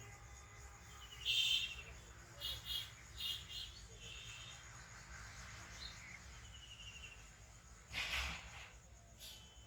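Birds chirping in short bursts over a faint steady insect drone, with one brief noisy burst about eight seconds in.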